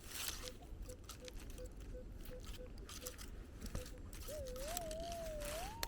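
Minelab Equinox 800 metal detector sounding a target: a wavering tone that rises in pitch over the last second and a half, ahead of an ID reading of 17–18. Before it come crunching steps or coil sweeps through snowy leaf litter and a faint run of short beeps about three a second.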